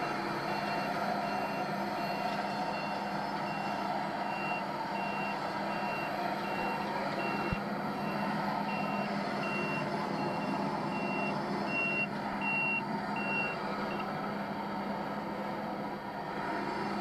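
Reversing alarm of an airport ground service vehicle beeping steadily, about one high beep every three quarters of a second, stopping near the end. Under it runs a steady low hum of ramp machinery.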